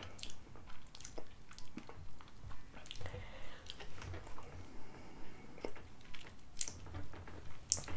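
A person chewing with the mouth close to the microphone, moist crunching in a steady rhythm about two to three times a second: the last of the Paqui One Chip Challenge tortilla chip being chewed.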